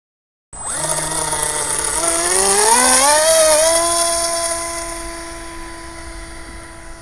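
Small 2200Kv brushless electric motor of a foam RC model plane, driving a 5x5 inch prop, whining over a high hiss; its pitch rises as it throttles up about two seconds in, then holds steady as the sound fades.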